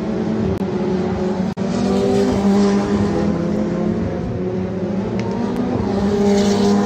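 Race car engine running at steady, high revs, with the pitch shifting slightly and a momentary gap about one and a half seconds in.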